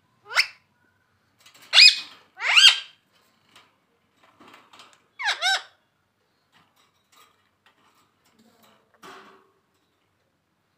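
Pet parrot calling in short, shrill pitched squawks: a quick one at the start, two louder ones about two seconds in, another about five seconds in, then a few faint chirps.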